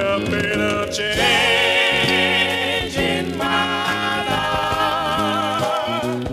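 Gospel quartet singing with instrumental backing, the voices holding long notes with vibrato.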